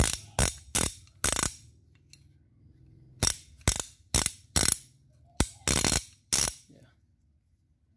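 Steel wrenches clinking against each other as they are picked up and set down: about eleven sharp metallic clinks in three quick bunches, each ringing briefly.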